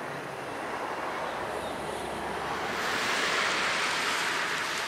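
Road traffic going by: a steady tyre hiss that swells about three seconds in as a vehicle passes close.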